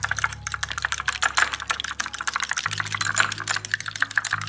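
A fork whisking beaten eggs in a small glass bowl, its tines clicking rapidly and unevenly against the glass.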